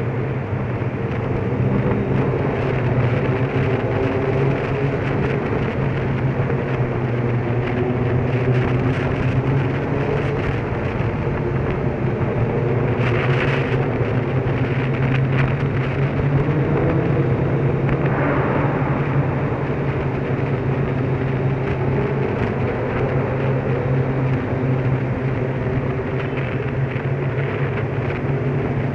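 Motorcycle engine running at a steady speed, with road and wind noise.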